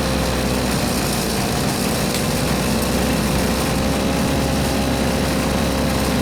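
Small engine of a gas-cartridge brush cutter running steadily at an even speed.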